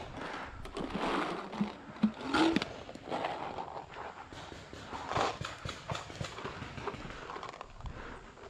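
Paintball gunfire: a scatter of sharp, irregular pops and knocks, the loudest about two and a half seconds in.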